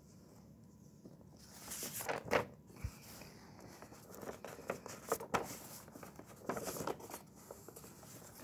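Paper being handled: rustling and scratching in a few short bursts, about two, five and seven seconds in, with one sharp click near the middle.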